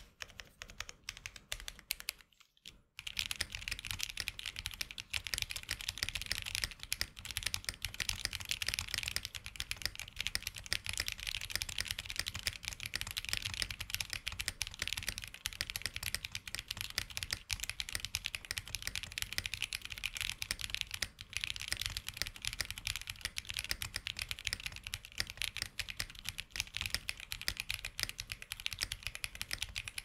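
Mechanical keyboard with Akko Snow Blue Grey linear switches (43 gf) and PBT double-shot Cherry-profile keycaps, on a Tofu 60 2.0 with aluminium plate and case and plate foam, being typed on. There are a few separate keystrokes and a brief pause, then fast continuous typing from about three seconds in.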